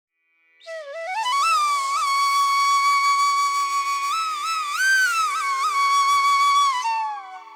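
Background music: a solo melody that glides up, holds one long ornamented note and falls away near the end, over a faint steady drone.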